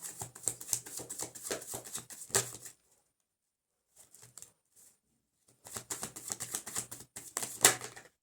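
Tarot cards being shuffled by hand: two spells of quick, rapid card rustling and clicking with a pause of about three seconds between them.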